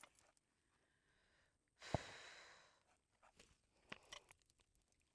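Near silence broken by one sharp knock with a short hissing tail about two seconds in, then a few faint clicks.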